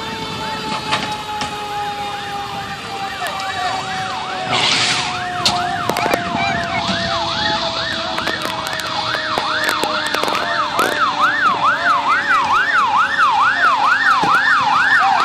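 Emergency vehicle sirens: an electronic siren in a fast yelp, about two sweeps a second, comes in a few seconds in and grows steadily louder, over another siren's steady tone slowly falling in pitch. A short hiss of air sounds about four to five seconds in.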